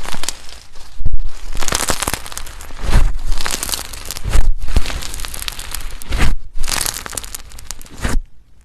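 Slime being squeezed and worked by hand, giving dense crackling, clicking pops in repeated bursts of a second or two.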